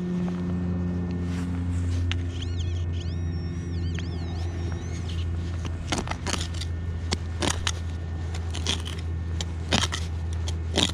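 A steady low hum throughout. A wavering high tone runs from about two seconds in for about three seconds, and a series of short, sharp scrapes and crunches comes in the second half.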